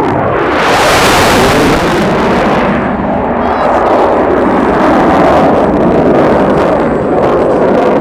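F/A-18 fighter jet's engines at high power during a flyby: a loud, steady jet noise. A sharp high hiss swells in about half a second in and fades out around three seconds, leaving a lower, continuous rumble.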